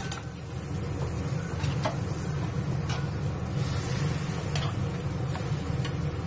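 Beef braising in sauce in a wok over a steady low kitchen rumble. A few sharp clinks of a metal spatula against the wok come scattered through it.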